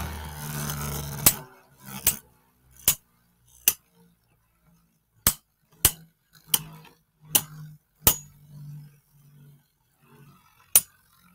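Beyblade Burst tops, one with 3D-printed parts, spinning in a plastic stadium and clashing with about ten sharp clicks at uneven intervals. A faint low hum from the spinning tops comes between the hits.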